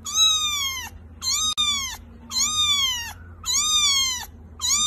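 Young kitten mewing: five high-pitched calls about a second apart, each rising then falling in pitch.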